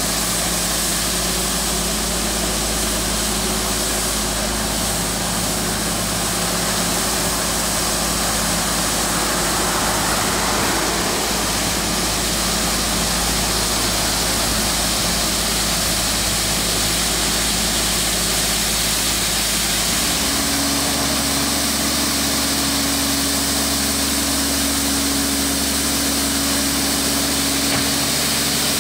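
Trackless MT7 articulating sidewalk tractor running steadily as its front power angle sweeper's rotary brush sweeps sand and debris off a concrete sidewalk, an even engine hum under a broad hiss. The engine note changes about twenty seconds in.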